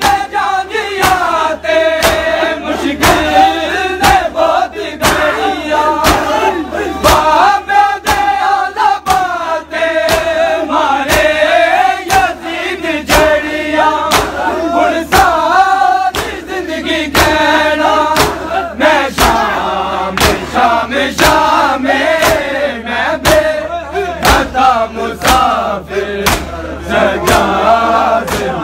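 A crowd of men chanting a Shia noha in unison, their voices loud and continuous, with sharp rhythmic slaps about twice a second from matam, hands beating on bare chests in time with the chant.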